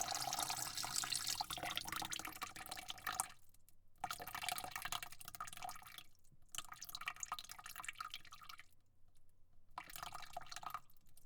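Water falling and splashing in four spells, each cut off abruptly by a short silence before it starts again.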